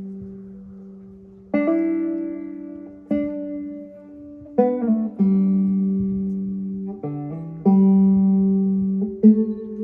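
Banjo played slowly: single plucked notes and chords struck about every one to two seconds, each left to ring and fade over a low sustained note.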